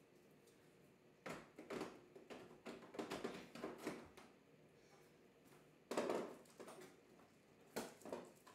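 Hands fumbling with a refrigerator's water filter and its fittings: irregular clicks, knocks and rustles in short clusters, the loudest knock about six seconds in.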